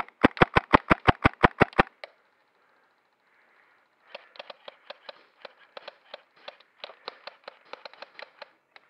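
KWA M11A1 gas-blowback airsoft machine pistol firing a quick string of about a dozen sharp shots in under two seconds. From about four seconds in come fainter, irregular pops and clicks.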